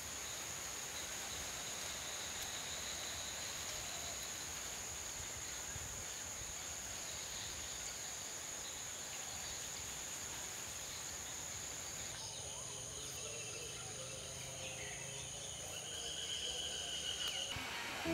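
Outdoor ambience carried by a steady, high-pitched insect drone over a background hiss. About two-thirds of the way in the ambience changes, and a short, higher sustained call comes in near the end.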